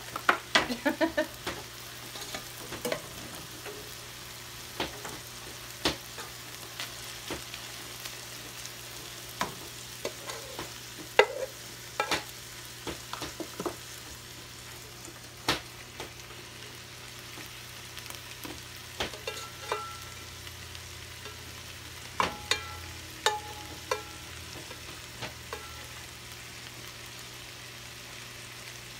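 Sausage and spinach sizzling steadily in a skillet, with scattered knocks and scrapes of a spatula working stuck gnocchi out of a saucepan into the pan. A few of the knocks about two-thirds of the way through ring briefly.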